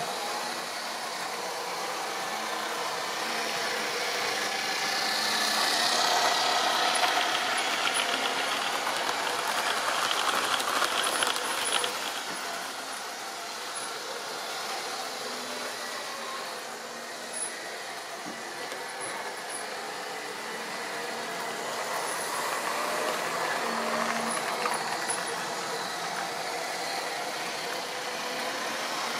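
OO gauge model trains running on the layout's track, a steady mechanical running noise that grows louder twice as trains come close.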